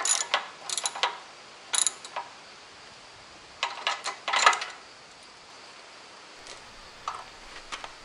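Socket ratchet wrench clicking in short bursts as a nut is tightened on the backhoe bucket's linkage bolt, with metal wrench clinks. The clicking stops about five seconds in, with only a couple of single clicks near the end.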